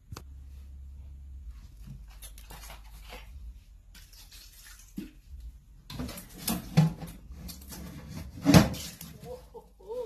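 Kitchen handling noises: scattered clicks and knocks of dishes and utensils over a steady low hum, busier in the second half, with one loud knock near the end.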